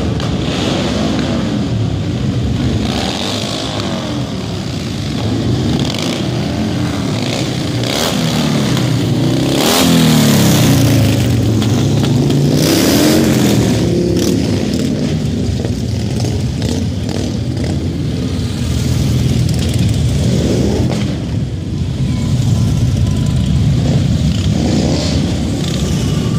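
A line of heavy cruiser and touring motorcycles riding past one after another, engines running loud. About ten to fourteen seconds in, the engine pitch rises and falls as bikes rev and pass close by.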